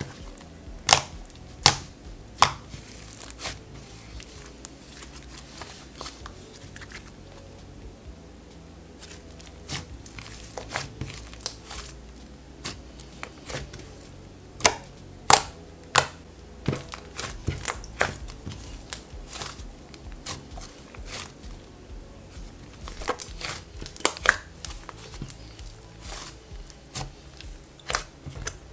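Hands kneading, folding and pressing a soft, stretchy butter slime, giving irregular sharp pops and clicks. The loudest pops come in clusters about a second in and again about halfway through.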